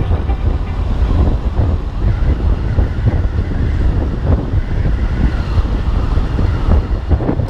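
Honda Beat scooter riding along a road, heard from the rider's position: a steady low wind rumble on the microphone over the small engine and tyre noise.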